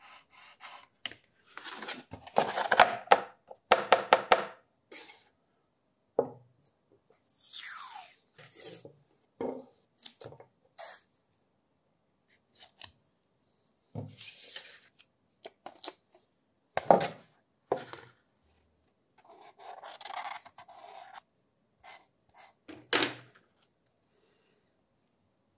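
Adhesive tape being pulled off its roll and torn, in a series of short, separate rasping bursts, with one rising screech about eight seconds in.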